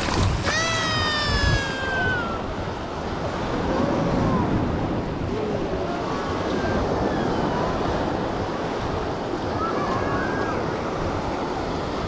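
Surf breaking and washing up the sand in a steady rush. About half a second in comes a long high call that falls slightly in pitch.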